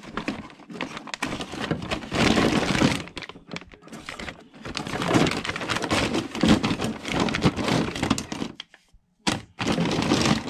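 Hard black plastic RC crawler parts and roll-cage pieces clattering and rattling as they are rummaged through in a cardboard box, with plastic parts bags crinkling. The clatter pauses briefly near the end.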